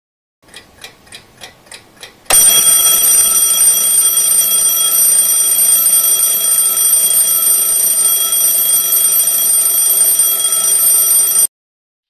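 Mechanical twin-bell alarm clock ticking about four times a second, then its bell alarm going off about two seconds in: a loud, steady ring that lasts about nine seconds and cuts off suddenly.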